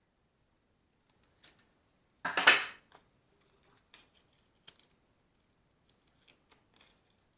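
Scattered small clicks and taps, with one louder rattling scrape lasting about half a second a little over two seconds in: handling noises from work on the tool, with no motor running.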